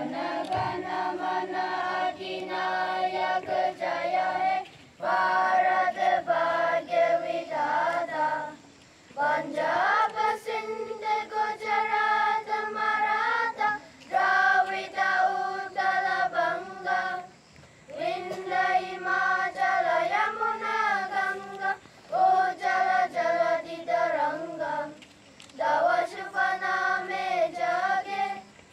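A group of school children singing in unison: long held phrases with short pauses for breath between them.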